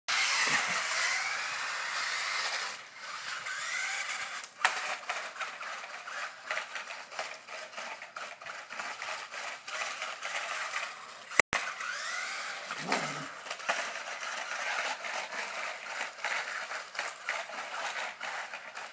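Toy remote-control car's electric motor whining, its pitch rising and falling as it speeds up and slows, with clicking and scraping from the car on the pavement. A single sharp click a little past halfway.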